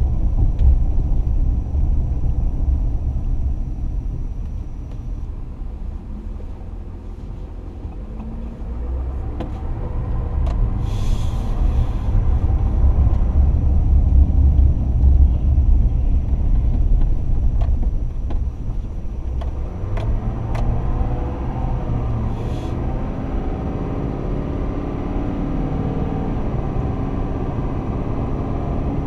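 Pickup truck driving, heard from inside the cab: a steady low rumble of engine and road noise. It quietens a few seconds in, then builds again as the engine note rises while the truck speeds up, about ten and again about twenty seconds in, with a few faint clicks.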